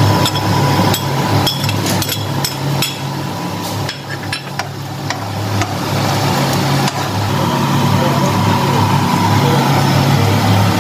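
A metal spoon clinks and scrapes against a nonstick wok as diced onion, garlic and ginger are stirred, with sharp taps through the first five seconds or so. A steady low hum runs underneath throughout.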